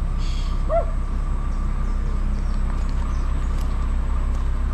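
A small dog gives one short whine about a second in, over a steady low rumble.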